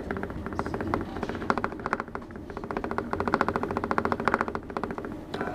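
Metre-gauge Mont Blanc Express train running, heard from inside the carriage: a steady low rumble with a fast, even clicking rattle over it.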